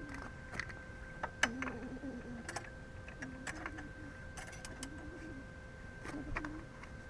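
Welding machine switched on and idling with a steady high whine, while metal is handled with scattered clicks and taps as the electrode holder and a steel bar are set in place; a low wavering hum comes and goes.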